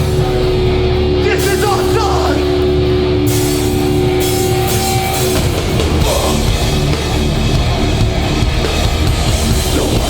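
Hardcore band playing live at full volume: guitars, bass and drum kit, with long held notes ringing over the first half.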